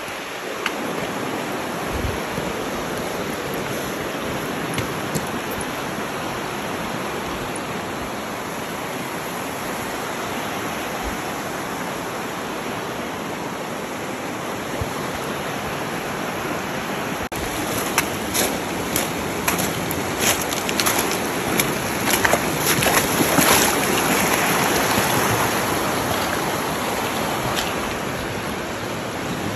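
Shallow river rushing steadily over stones. From a little past halfway, boots splash through the water in a run of quick splashes that peaks and then fades near the end.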